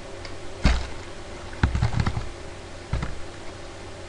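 Computer keyboard being typed on: separate keystrokes about a second in and near the end, and a short quick run of keys about halfway through, as a zone name is entered into the dispatch grid.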